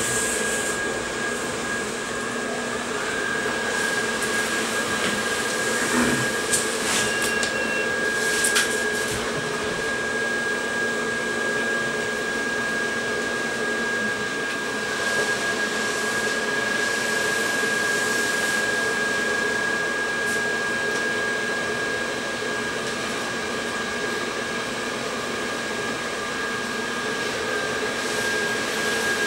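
Electric blower fan of an inflatable igloo lawn ornament running steadily: a constant rushing hum with a thin steady whine. A few short knocks come about six to nine seconds in.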